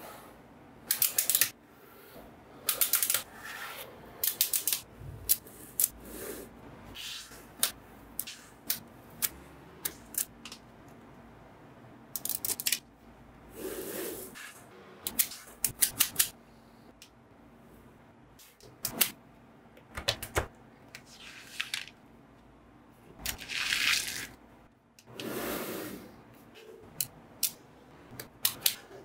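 Small magnetic balls clicking and snapping together, in irregular single clicks and quick clusters, with a few longer rattling stretches as handfuls of balls shift against each other.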